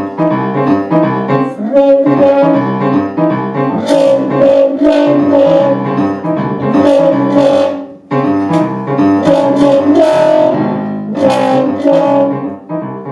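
Live improvised piano music, with dense chords and quick runs of notes and a brief pause about eight seconds in.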